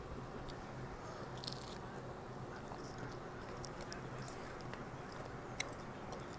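Close mouth sounds of biting and chewing a Taco Bell Mexican pizza, tortilla shells a little soggy, giving scattered small wet clicks and soft crunches, the sharpest near the end. A faint steady low hum runs underneath.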